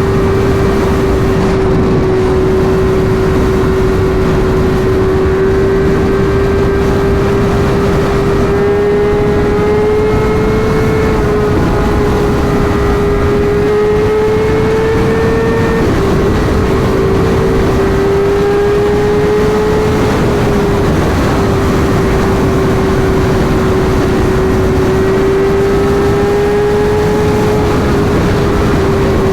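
Sport bike engine held at high revs at highway speed, a steady high-pitched note that rises and falls slightly, with a couple of brief dips about halfway through, over heavy wind rush.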